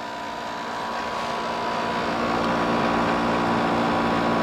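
General Electric ADEL50LRL2 dehumidifier running: a steady motor hum that grows gradually louder. The unit is working properly, with its coils cold and pulling water out of the humid air.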